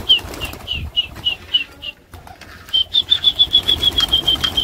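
A flock of domestic pigeons taking off and flapping their wings. Over the wing noise comes a run of short, high, falling chirps, and about halfway through a faster, steady run of chirps that slowly sinks in pitch.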